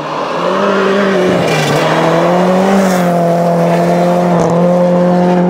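Toyota rally car engine pulling at high, steady revs as it slides by on a snowy stage. The revs climb over the first second, dip briefly, then hold steady, with a rushing noise from the tyres in the snow about two seconds in.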